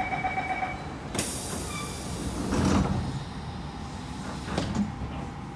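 Siemens C651 train doors closing. A steady beeping door-closing tone stops about a second in, a sudden hiss follows, and the doors slide shut with a heavy thud near three seconds in, then a lighter knock near five seconds.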